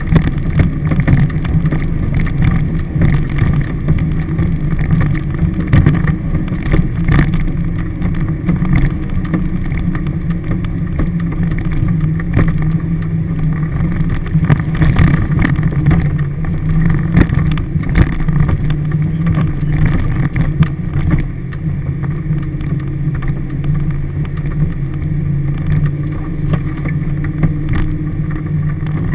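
Toyota Hilux engine running steadily at low speed, heard inside the cabin, with scattered knocks and rattles as the vehicle works along a rough four-wheel-drive track.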